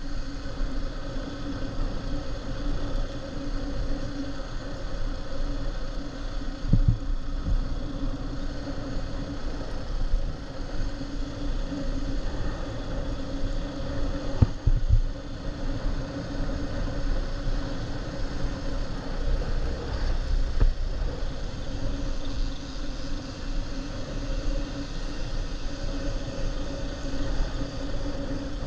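Small motorbike engine running steadily at low, even speed, with road and wind rumble and a few brief low thumps from bumps about a quarter, half and two-thirds of the way through.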